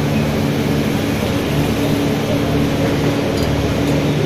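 Coaches of an Indian Railways Duronto Express passing close by along a platform as the train arrives: a steady, loud rolling noise of wheels on rails, with a steady low hum underneath.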